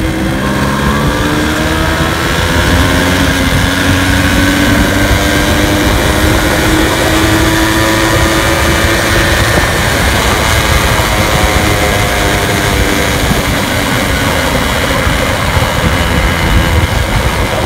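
Modified Suzuki motorcycle's engine running under way, its note climbing as it accelerates over the first several seconds and then holding steady at speed. Its sound is meant to resemble a Yamaha RX100.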